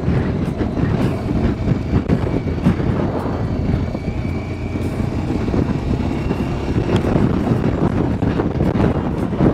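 Motorcycle riding at steady speed on an open road: engine and road noise under a dense, continuous rumble of strong wind buffeting the microphone.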